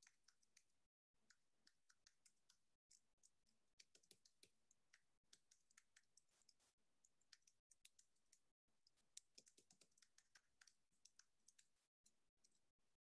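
Faint computer keyboard typing: quick, irregular key clicks, broken by brief moments of dead silence.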